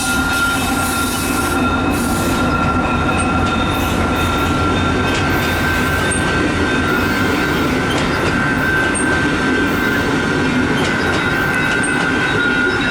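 Railcars of a freight train rolling steadily past, a continuous rumble of wheels on rail with a steady high-pitched wheel squeal running over it.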